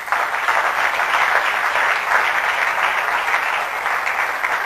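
Audience applauding: dense, steady clapping that breaks out suddenly and keeps going.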